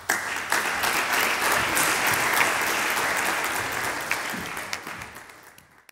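Audience applauding, a dense steady patter of many hands that fades away near the end and is then cut off.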